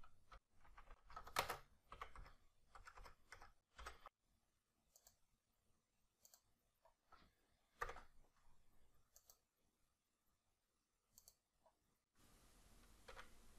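Faint typing on a computer keyboard, a quick run of key clicks for about the first four seconds, then scattered single clicks of keys and mouse. A faint steady hiss comes in near the end.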